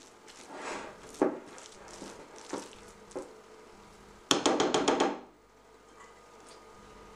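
Metal spoon scraping and knocking against a glass plate as a thick egg-and-tuna filling is mixed. About four seconds in comes the loudest part, a quick rattling run of about seven sharp clicks lasting under a second.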